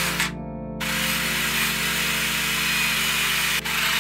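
Wire wheel brush on a power drill, scrubbing rust off a steel ratchet wrench handle. The steady scrubbing whirr stops just after the start, comes back about a second in, and breaks off for a moment near the end. Background music plays underneath.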